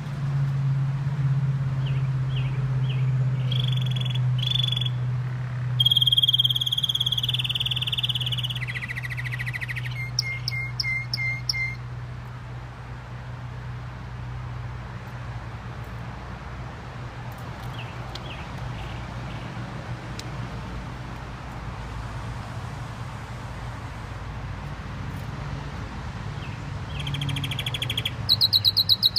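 Gloster canary singing in bursts: about ten seconds of rolling trills and whistled notes, a long pause with only a few faint notes, then a fast, loud trill near the end. A steady low hum runs underneath.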